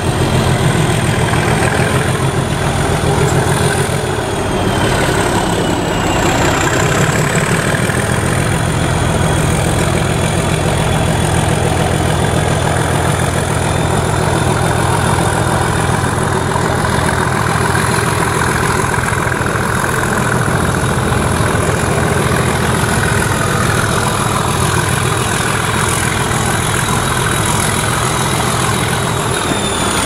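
DRS Class 37 diesel locomotive 37419 working hard under power, its English Electric V12 engine running with a loud, steady low rumble and a high turbocharger whistle on top. The whistle dips in pitch near the end.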